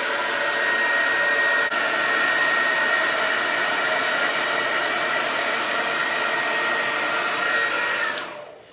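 Pink Revlon hand-held hair dryer blowing steadily, a rushing airflow with a steady high whine from its motor and fan, switched off near the end and winding down.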